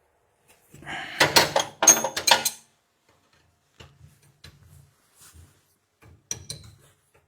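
Metal parts and fittings being handled and clattered together, with a loud burst of rattling and clinking about a second in, then a few small knocks and taps.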